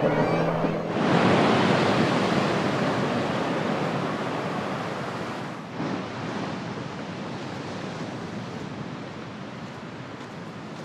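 Ocean surf breaking and washing ashore on a beach. It swells up about a second in and slowly fades, with a brief break near the middle.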